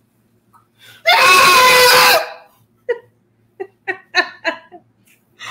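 A man's velociraptor impression: a loud, piercing screech about a second in, lasting just over a second. It is followed by several short bursts of a woman's laughter.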